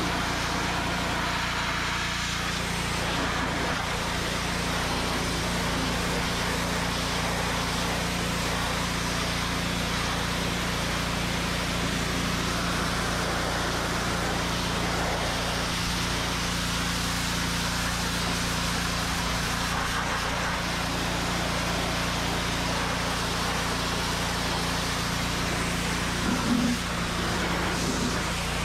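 Honda GX200 single-cylinder engine of a gas pressure washer running steadily, with the hiss of the high-pressure water jet spraying against a tractor's tyre and steel steps.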